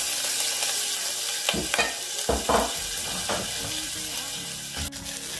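Sliced red onion sizzling steadily in hot oil in a steel pot, with a few light knocks about a second and a half to three seconds in.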